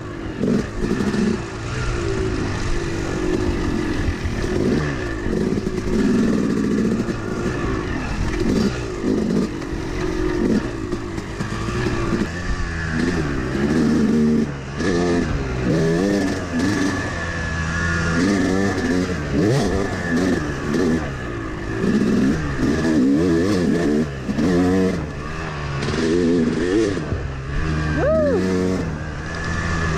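A Yamaha YZ250-series two-stroke dirt bike engine being ridden along a trail. The revs climb and fall again and again as the throttle is worked, with a sharp rev-up near the end.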